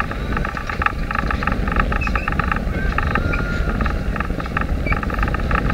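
Wind buffeting the microphone over the rush of water along the hull of a small sailboat under way, with a fast crackling rattle above it.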